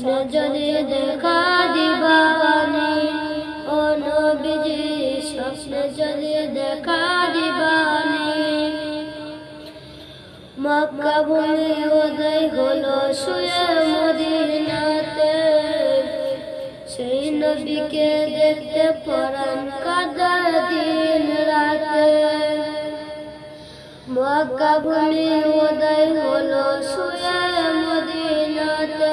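A boy singing a Bengali gojol (Islamic devotional song) solo, in long melodic phrases with a wavering, ornamented pitch, pausing briefly for breath three times.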